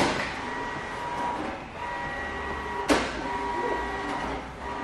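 A squeegee dragged over wet paint protection film on a truck bumper, squeaking at a steady pitch in strokes about a second long, with two sharp clicks.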